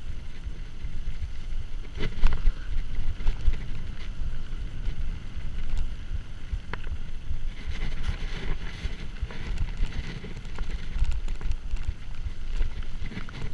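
Wind buffeting the camera microphone on a Giant Trance full-suspension mountain bike riding fast down a rough dirt trail, with the tyres rumbling over the ground and the bike rattling. Now and then a sharp knock as the bike hits bumps.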